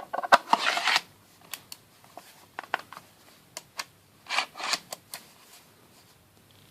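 Small hard parts of a screwdriver set clicking and rattling as they are handled: a burst of rattling clicks at the start, single clicks, then another short rattle about four seconds in.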